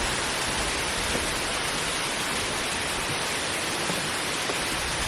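Steady rush of waterfall water: an even, unbroken hiss at constant loudness.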